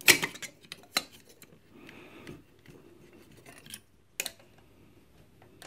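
Metal clinks and clicks of aluminium valve shields and valves being pulled off and out of their sockets in a vintage valve radio chassis. There is a sharp clink right at the start, another about a second in, then a little scraping and a few quieter clicks.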